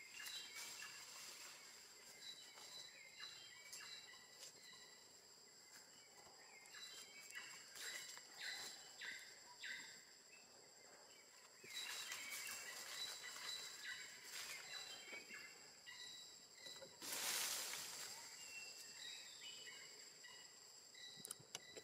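Faint outdoor forest ambience: a steady high insect drone with scattered short, high chirps, and a brief burst of noise about seventeen seconds in.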